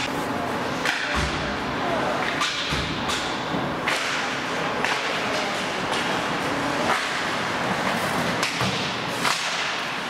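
Ice hockey play: sharp clacks of sticks and puck and thuds against the boards, about ten in all and unevenly spaced, over the steady noise of skates on the ice.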